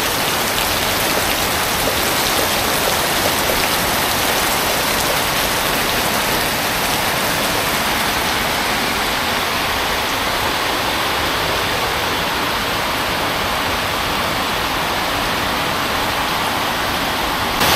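Heavy rain pouring down steadily as one even, dense hiss.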